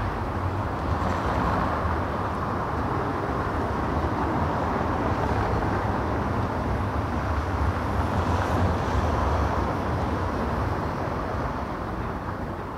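City street ambience: a steady, low traffic rumble with no distinct events, easing slightly near the end.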